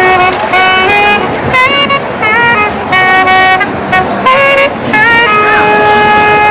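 A horn-like wind instrument plays a melody in short notes, several of them scooping up in pitch, then holds one long note near the end, over a steady hum of city street noise.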